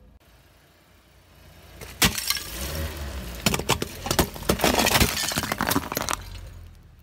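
A car tyre rolling over a terracotta flower pot full of candy, crushing it: a dense run of sharp cracks and crunches starting about two seconds in and stopping about a second before the end, over a low rumble.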